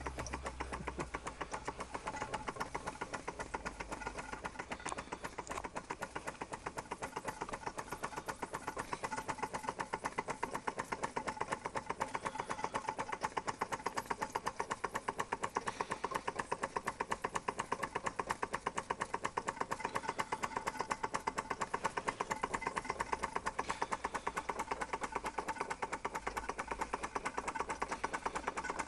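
Bing toy steam engine running steadily under steam: a rapid, even beat of short clicks from its cylinders and moving parts.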